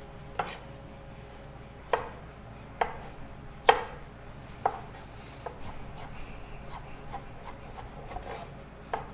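Chef's knife chopping tomato on a wooden cutting board while dicing it into small cubes. A few separate sharp knocks of the blade on the board come about a second apart, then from about halfway the cuts turn quicker and lighter.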